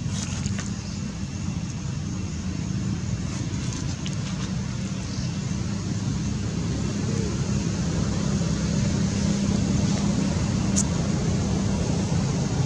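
Steady low rumble of a vehicle engine, growing a little louder in the second half, with one brief high click near the end.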